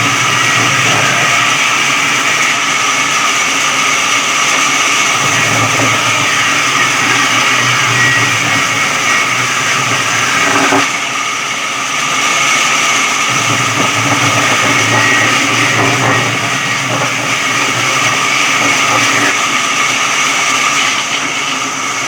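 Electric sawmill saw running steadily with a loud mechanical whine and hum, dipping briefly in level about halfway through.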